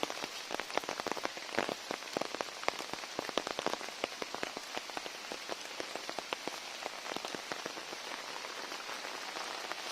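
Heavy rain falling, with a steady hiss and many separate raindrop strikes close by, several a second.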